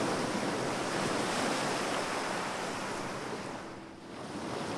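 Ocean surf rushing in a steady wash of noise. It ebbs to a low point about four seconds in, then swells back up.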